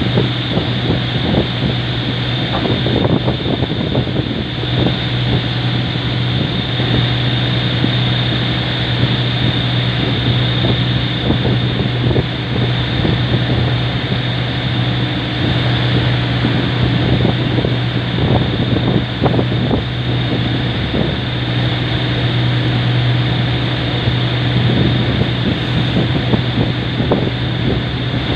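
Boat engine running at a steady drone, with a thin constant whine above it and wind buffeting the microphone in irregular gusts.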